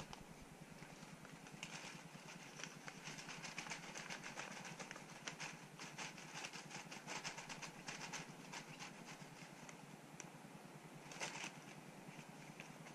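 Faint, irregular crinkling and rustling of a paper bag and a plastic flour packet being handled as plain flour is tipped into the bag, a little louder about 11 seconds in.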